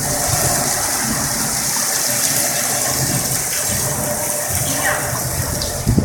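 Water gushing and splashing onto a flooded balcony, a steady hissing rush.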